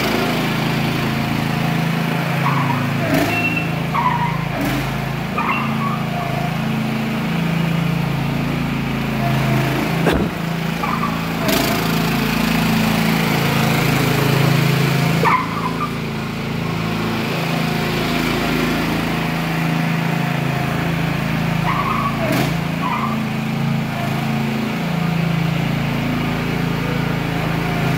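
Lawncare LT-4018 riding lawn mower's engine running steadily as the machine is driven about, swelling louder at times. A few sharp clicks or knocks sound over it.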